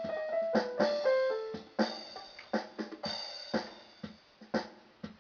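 Electronic keyboard playing a steady drum beat, about two hits a second, with a short run of falling notes in the first second and a half.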